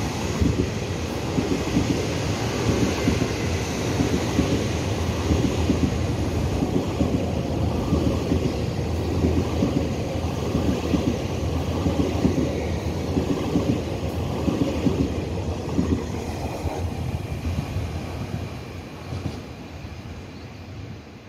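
An EMU3000 electric multiple unit runs through the station: a steady rumble of steel wheels on rail with a regular clatter as each bogie passes. The sound fades in the last few seconds as the tail end draws away.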